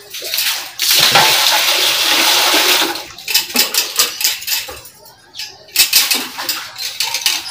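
Running water gushing into a wok as it is washed, followed by intermittent scrubbing and clattering of the pan.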